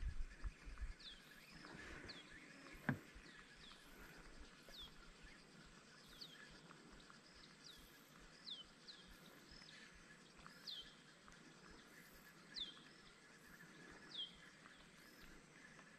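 Faint, steadily repeated bird call: short high whistled notes that slide downward, about one a second. A single sharp knock comes about three seconds in.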